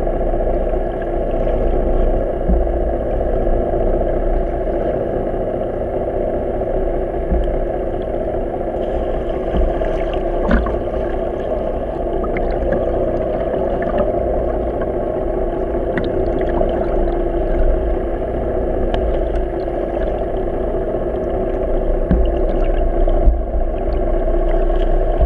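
Boat engine running steadily, heard underwater through a waterproof camera housing: a constant hum made of several held tones, with scattered faint clicks and pops.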